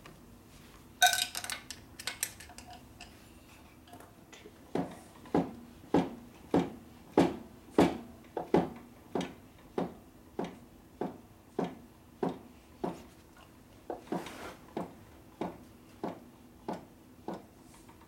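Evenly spaced metallic clicks, about three every two seconds, each ringing briefly, while the S&S Evo engine is turned slowly toward the front cylinder's timing mark for static ignition timing. A short clatter of metal comes about a second in.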